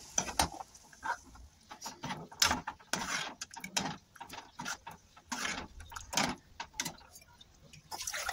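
Metal ladle scraping and knocking against a metal kadhai while stirring a thin, watery curry, in irregular strokes about one or two a second.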